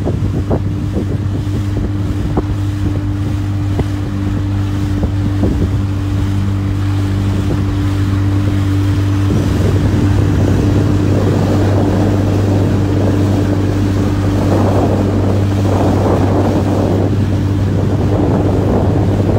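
Motorboat's outboard engine running at a steady speed while travelling through floodwater, with water noise and wind on the microphone.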